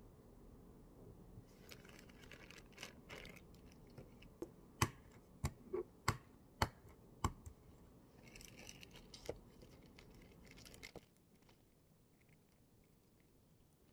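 A boiled egg knocked against a desk to crack its shell: about six sharp taps over three seconds, then a few seconds of crackling and rustling as the cracked shell is worked and the plastic zip bag is handled.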